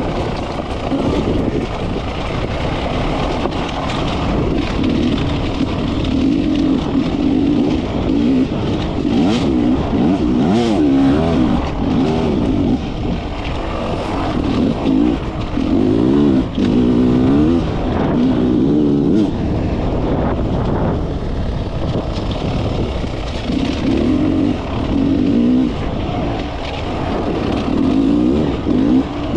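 Beta enduro motorcycle engine revving up and down over and over as the bike is ridden on a rough dirt trail, the throttle opened and shut in short bursts. Occasional sharp knocks from the bike over rocks.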